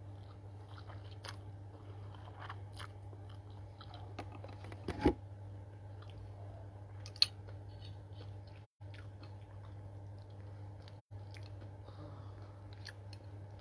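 A person chewing a mouthful of instant noodles and vegetables, with small crunches and mouth clicks, over a steady low hum. About five seconds in there is a single loud knock, then a sharp click a couple of seconds later, and the sound cuts out briefly twice.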